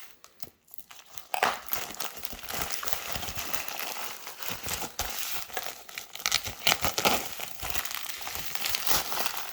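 Packaging being crumpled and pulled open by hand, a steady crinkling with sharp crackles, starting about a second in.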